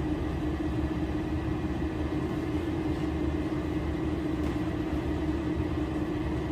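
A steady machine hum with a constant low tone, unchanging throughout.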